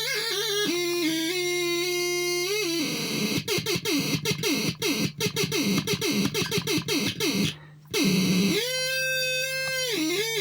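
Electronic synthesizer making voice-like wailing tones: held notes that slide up and down, then a fast run of short falling chirps in the middle, a brief break, and a long held note near the end. A steady low hum sits underneath.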